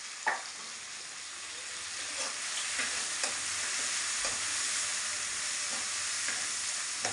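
Chopped onion and tomato sizzling in hot oil in a kadai, with a metal ladle stirring through the mix and clicking against the pan now and then. The sizzle grows a little louder about two seconds in.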